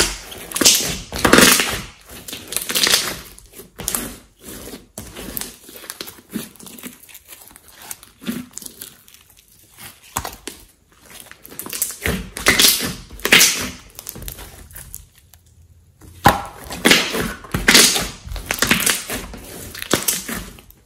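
Hands kneading, stretching and pressing a large lump of glossy slime: sticky squelches and clusters of crackling clicks in bursts. The loudest bursts come at the start, about halfway through and near the end, with quieter handling between.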